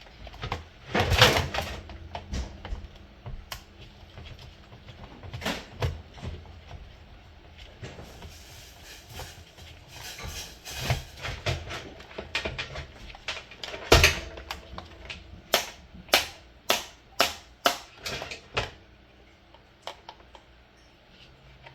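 Scattered clicks, knocks and clatter of a plastic Timex alarm clock and a screwdriver being handled while its back is unscrewed. There are louder clatters about a second in and again near the middle, then a run of sharp clicks, about two a second, a little later.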